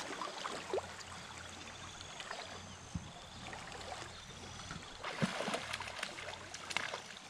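Stream water running steadily, with a few faint knocks and rustles.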